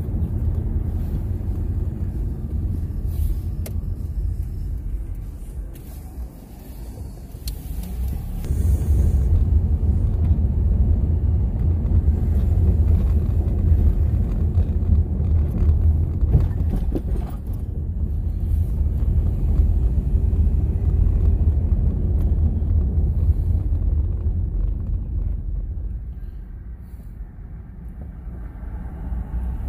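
Car interior driving noise: a steady low engine and road rumble heard from inside the cabin. It drops quieter about six seconds in, swells back up a few seconds later, and eases off again near the end as the car slows for a stop sign.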